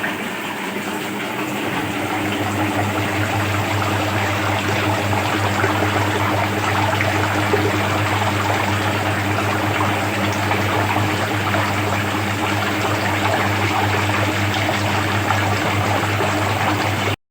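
Liquid dough mixer running: a steady electric-motor hum that strengthens about two seconds in, under the churning of liquid batter being stirred in the tank.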